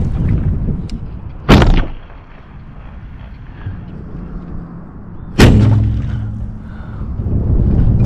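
Two sharp shots of a bowfishing recurve bow, about four seconds apart, each a loud thump with a brief ringing twang from the string and limbs. Low wind rumble on the microphone runs underneath, fading in the middle and rising again near the end.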